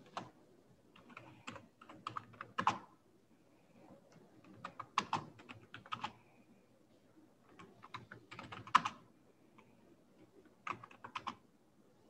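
Computer keyboard being typed on, in about five short bursts of rapid keystrokes with pauses between them.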